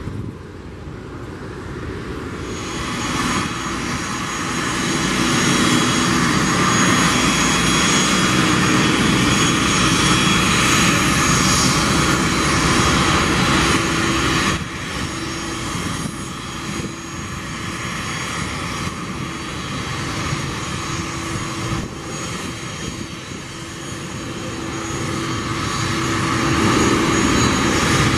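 Jet airliner engines: first a Boeing 737 on the runway, its engine noise building over the first few seconds, then, after a sudden break about halfway, the four engines of a Boeing 747-400 freighter at taxi power, a steady rush with a thin high whine that grows louder near the end as it passes close by.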